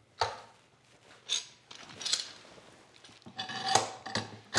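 Tools and pieces of wood being handled on a workbench: a sharp knock, a few short scrapes and rubs, then a brief ringing clink and another knock near the end.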